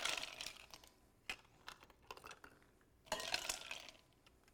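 Ice cubes scooped out of a glass bowl with an ice scoop and tipped into a tall glass: a rattling crunch of ice at the start, a few light clinks, then another rattle of ice about three seconds in.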